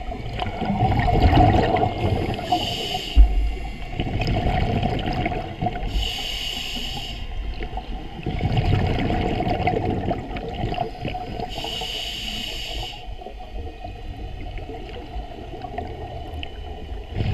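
Scuba diver breathing through a regulator underwater: three short hissing inhalations with a faint whistle, each between rumbling bursts of exhaled bubbles. One sharp knock about three seconds in.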